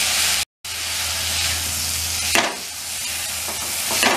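Vegetables sizzling as they stir-fry in a non-stick wok, with a spatula scraping and knocking against the pan twice, about two and a half seconds in and again near the end. The sound cuts out for a moment about half a second in.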